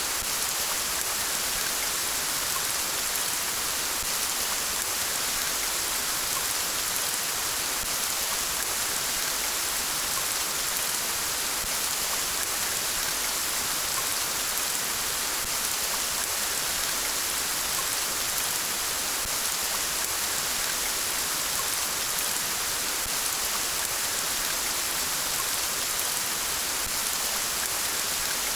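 Steady rain falling and pattering on surfaces, an even hiss with no thunder.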